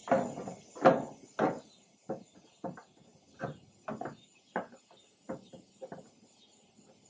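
Knocks and clicks of a metal gas timer valve and its faceplate being fitted by hand into a hole in a grill's sheet-metal control panel: three louder clunks at first, then a string of lighter, irregular clicks about two a second.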